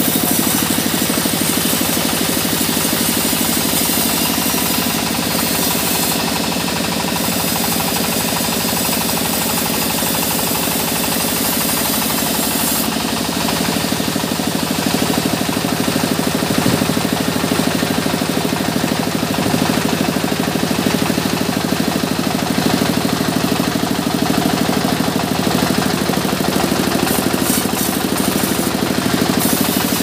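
Band sawmill ripping a mahogany log: the blade and its drive run steadily with a loud, dense cutting noise, the hiss of the cut growing a little brighter about halfway through.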